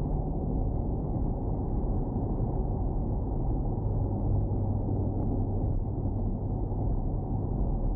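2019 Corvette Stingray cruising at highway speed, heard from inside the cabin: steady tyre and road noise with a low engine drone from its 6.2-litre V8. The drone grows a little stronger about halfway through.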